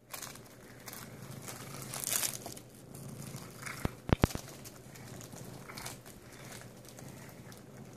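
Cellophane wrapping around a stack of cookies crinkling irregularly as a cat noses and bites at it, loudest about two seconds in. Three sharp clicks come just after four seconds.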